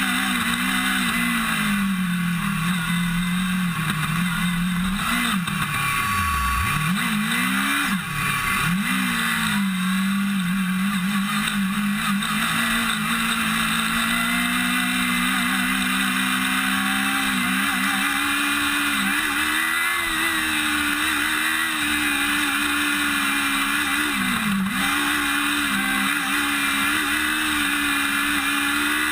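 Formula SAE race car's engine heard onboard from the roll bar, running hard at a fairly steady pitch. It drops sharply as the driver lifts off for corners: deeply about six seconds in, more briefly near eight, nine and twenty-five seconds, then climbs back.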